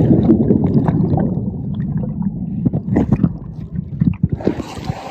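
Muffled water sloshing and splashing with scattered knocks and clicks, loudest at the start and thinning out toward the end.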